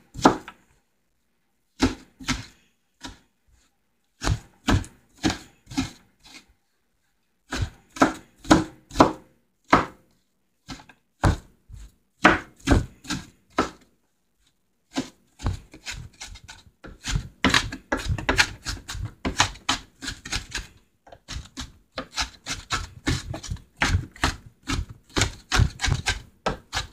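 Kitchen knife chopping onions finely on a cutting board. Groups of sharp knocks on the board come with short pauses between them, turning into quicker, steadier chopping about halfway through.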